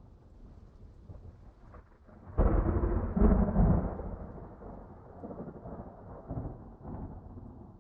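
Thunder: a low rumble, then a sudden loud clap about two and a half seconds in that rolls on for a second or two and fades, followed by a few smaller rumbles.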